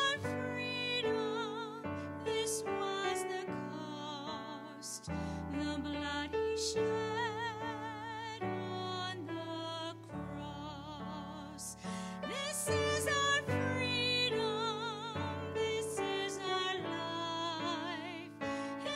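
A woman singing a slow song with vibrato, accompanied by sustained chords on a Yamaha electronic keyboard.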